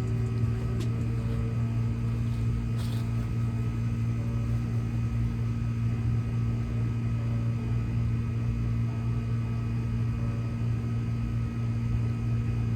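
Air-conditioner outdoor unit running with a steady low hum.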